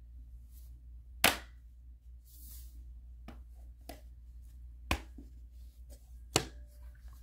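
Sharp plastic-and-metal clicks and knocks from a tablet and its keyboard cover being handled and fitted together: three loud clicks, about a second in, near five seconds and just past six, with fainter taps and a brief rustle between them.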